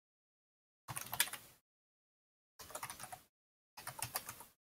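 Computer keyboard typing in three short bursts of rapid keystrokes, with dead silence between the bursts.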